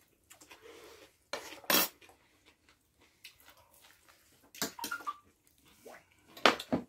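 Metal spoons and cutlery clinking against plates and a serving dish during a meal, in three short clusters about a second and a half, five, and six and a half seconds in, one clink ringing briefly.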